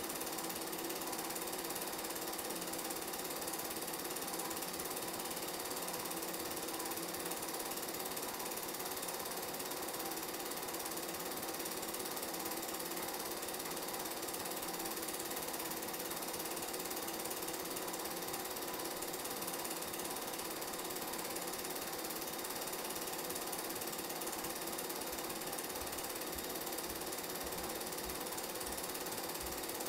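Motion-picture film projector running: a steady, unbroken mechanical clatter. This is the sound of the old game film being projected, not sound from the game.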